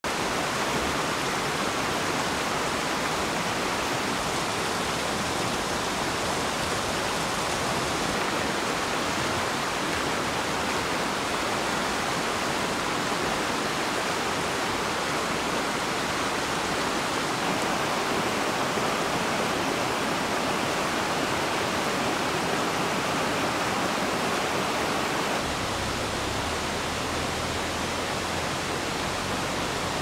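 A shallow mountain stream rushing steadily over rocks and riffles. Near the end the rush gets a little softer and deeper.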